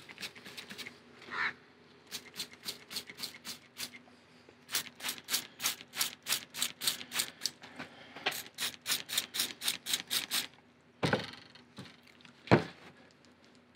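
Hand trigger spray bottle squirting soapy water over a fuel tank for a bubble leak test, in quick runs of about three squirts a second with short pauses between runs. Near the end come two louder short sounds, the second the loudest.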